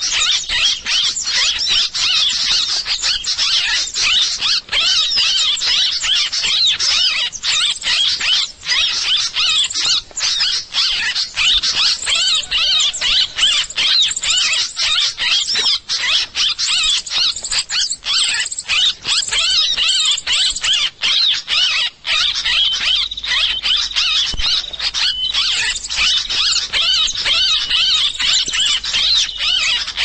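Bird-lure recording (suara pikat): a dense, unbroken chatter of many rapid, high, squeaky chirps from small birds, used to draw wild birds in.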